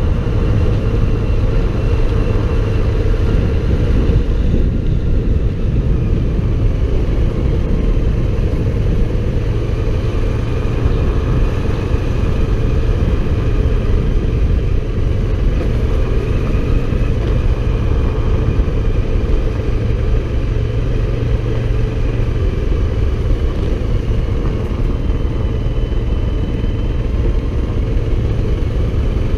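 Motorcycle engine running steadily on the move, with a faint whine that drifts up and down in pitch.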